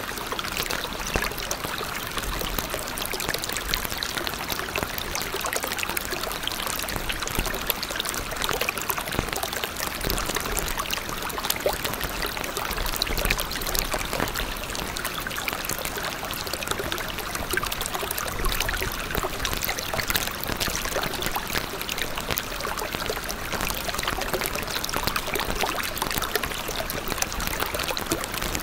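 A steady rush of running water, like a stream, with fine crackling specks through it and no change in level.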